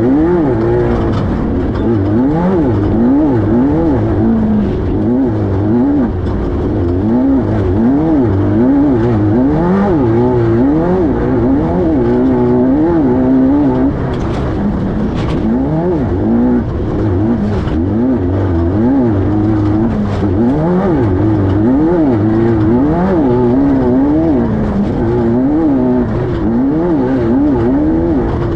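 Air-cooled 1600 cc VW flat-four engine of a Class 5-1600 off-road race car running hard, its revs climbing and dropping over and over, every second or so. A few sharp knocks come through near the middle.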